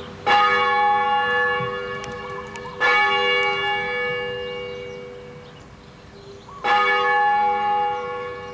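English change-ringing church bell in the cathedral tower, struck three times, about two and a half and then four seconds apart. Each stroke rings on as a cluster of steady tones and slowly dies away.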